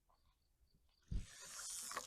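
Faint insect chirping, then about a second in a thump followed by a steady hissing buzz from a fishing reel's drag paying out line as a hooked fish runs.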